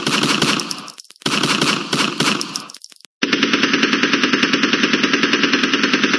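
Machine-gun fire sound effects: two bursts of rapid fire, a short pause, then from about three seconds in a long, steady stream of automatic fire at roughly ten rounds a second.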